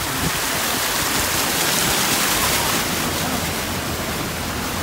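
Floodwater rushing and splashing around a car's tyres and body as it drives slowly through a flooded street; a steady rush, a little louder midway.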